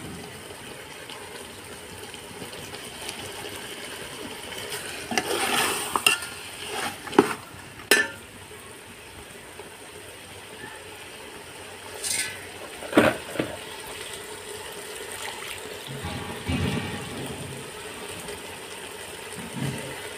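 Slotted metal spatula stirring a thick chicken curry in a large metal pot, with scrapes and sharp clinks against the pot every few seconds over a steady low sizzle of the simmering masala.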